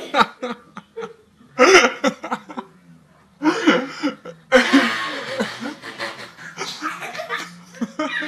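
A baby laughing hard in several bursts, the longest lasting about three seconds in the second half.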